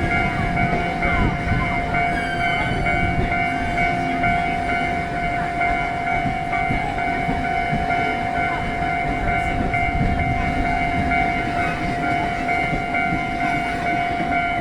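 A level-crossing warning signal sounds one steady unbroken tone while a passenger train passes over the crossing. The train's wheels and running gear rumble on the rails beneath it, heaviest in the first few seconds.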